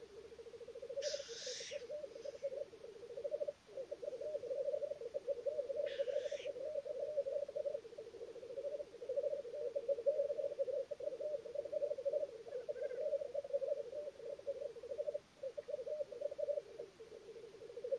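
Male black grouse at a lek, a continuous low, rolling bubbling song that pauses briefly twice. Two short hissing calls cut in, one about a second in and one about six seconds in.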